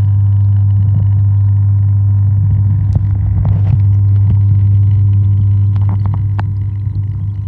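Steady low hum heard underwater, typical of the electric pump that feeds the pond's waterfall, with a few faint clicks now and then.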